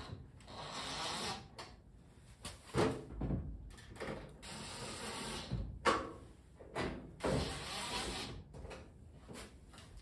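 Cordless driver with a T20 security Torx bit running in about four short bursts, each a second or so long, driving screws into a microwave's sheet-metal outer case. Sharp clicks and knocks of bit and case fall between the bursts.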